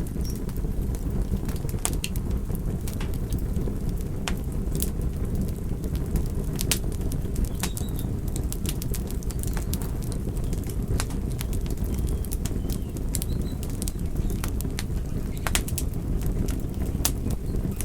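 Campfire burning: a steady low rush of flames with frequent sharp crackles and pops at irregular intervals.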